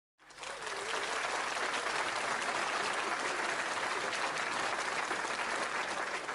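Audience applause, fading in just after the start, holding steady, and starting to die away near the end.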